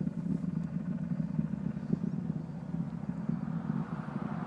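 Distant Delta IV rocket's engines in ascent: a steady low rumble with a ragged, crackling texture.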